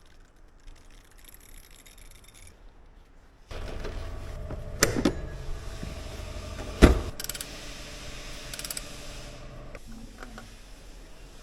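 Mechanical handling sounds: a few sharp metallic clicks and one loud knock over a steady background noise that starts suddenly about three and a half seconds in.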